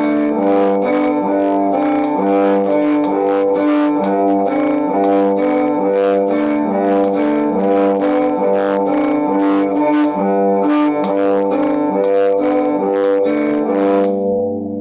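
Bowed string instrument playing double stops on two strings at once, sustained notes changing in a steady rhythm as a bowing exercise, over an even clicking beat. The playing stops at the very end.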